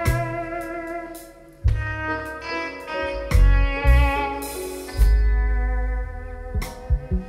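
Live blues-rock band: electric guitar holding long sustained lead notes over bass and drums, with the band hitting sharp accents together, each topped by a cymbal crash.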